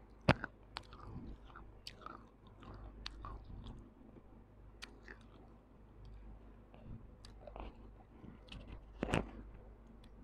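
Close-miked biting and chewing of baked clay, pieces of a broken kulhad cup coated in wet soil paste, in a string of sharp crunches and softer chewing. The loudest crunches come just after the start and about nine seconds in.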